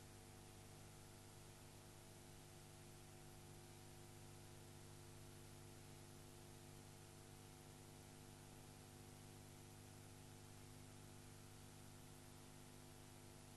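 Near silence: a faint, steady electrical hum with hiss underneath and no other sound.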